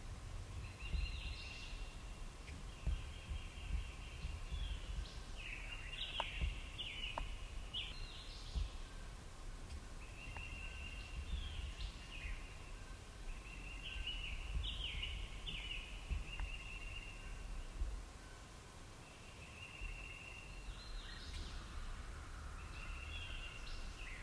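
Songbirds singing in spring woods: repeated high, level trills about a second long, with clusters of quick rising chirps. A low rumble of wind runs underneath.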